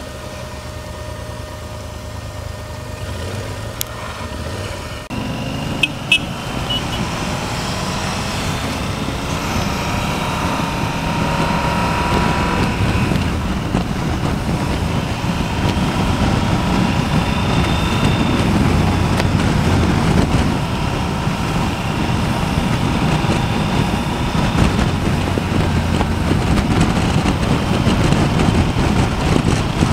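Yamaha Super Ténéré motorcycle engine, a parallel twin, heard from the rider's seat. It runs steadily at low speed, then from about five seconds in it gets louder and pulls away into cruising, with wind and tyre noise. Two sharp clicks come about six seconds in.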